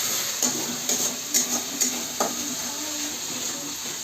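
Chicken frying in oil and masala in a pan with a steady sizzle, and a handful of sharp scrapes and knocks from a stirring spoon against the pan in the first couple of seconds.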